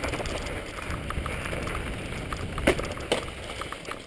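Mountain bike riding over snowy, rocky singletrack: steady rolling noise from the tyres and the bike's rattle, with two sharp knocks about two and a half and three seconds in as the bike hits rocks.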